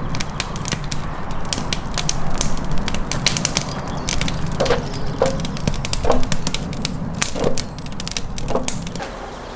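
Firewood crackling and popping as it burns in a clay tandoor, with dense sharp crackles over a steady low rush; wooden blocks knock several times as they are handled and dropped into the fire.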